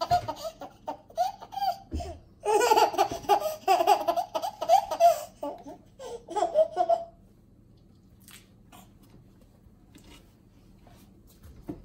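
A baby laughing hard in repeated bursts of giggles, which break off about seven seconds in, leaving only faint clicks.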